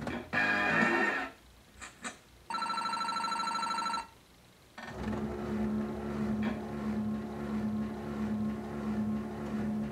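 Bally Wulff 'That's Cool' slot machine's electronic sound effects: a short jingle at the start, then a rapid ringing electronic trill for about a second and a half that cuts off suddenly. After a brief pause, a steady humming electronic loop plays as the reels spin.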